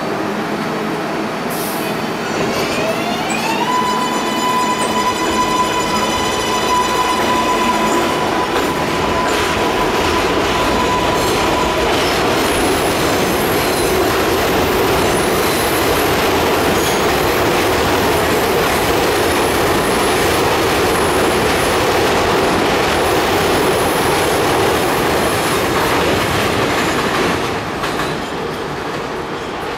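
R142A subway train pulling out and accelerating: a propulsion whine rises in pitch a few seconds in, then holds one steady tone for several seconds over steady wheel-and-rail noise. The noise drops off near the end as the train moves away.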